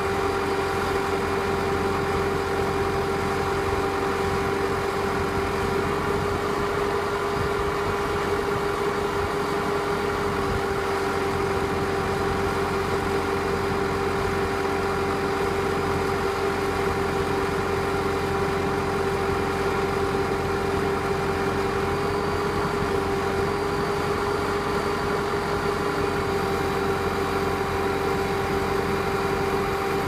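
Tracked skid steer's diesel engine running steadily, powering a hydraulic rock drill attachment as it drills into the ground, with a constant whine over the engine noise.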